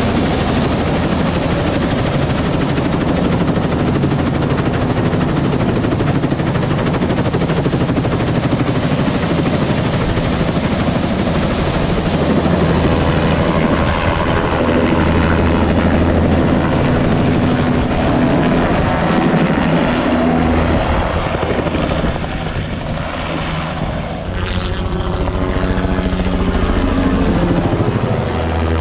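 Bell 206 JetRanger helicopter's turbine engine and two-blade main rotor running loud and steady, with a thin high turbine whine through the first twelve seconds or so. Near the end the helicopter is airborne and passing overhead.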